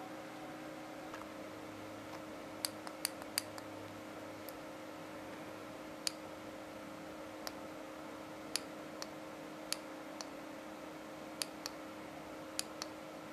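Push-button of a handheld laser pointer clicking, about a dozen short sharp clicks at irregular intervals, some in quick pairs, over a steady low electrical hum.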